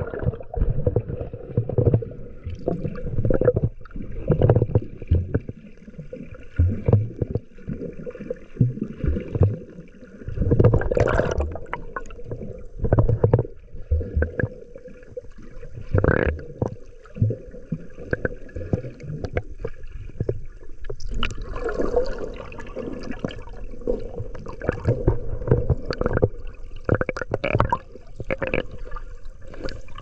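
Sea water heard through a camera held underwater: muffled sloshing and gurgling with irregular low bumps and knocks as the swimmer moves, over a faint steady hum.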